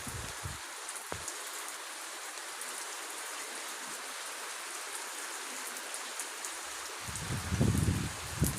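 Heavy rain falling steadily, a dense even hiss, with a low rumbling that swells in about seven seconds in.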